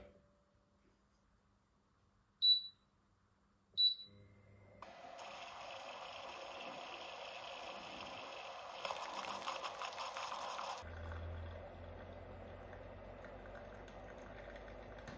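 Moka pot set down on an electric hot plate with a knock, then two short beeps from the hot plate's touch controls as it is switched on. The pot then brews with a steady hiss, crackling and sputtering for a couple of seconds near the middle as the coffee comes up. In the last seconds the coffee is poured into a glass mug.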